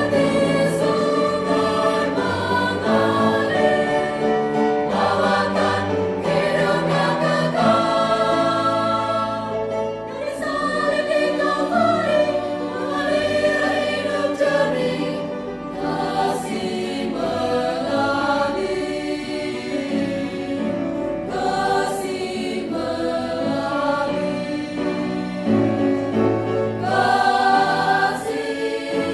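Mixed choir of women's and men's voices singing a hymn of praise in parts, holding long notes that change chord every second or two without a break.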